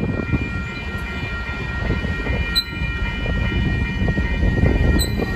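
Tank cars of a freight train rolling past on steel wheels, a steady rumble with irregular clacks over the rails at the grade crossing and a couple of sharp clicks. The crossing signal's bell rings steadily over it.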